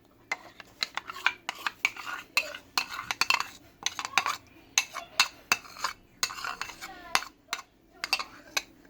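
A spoon knocking and scraping against a bowl in many quick, uneven clinks as yogurt is spooned into chickpea chaat and stirred through.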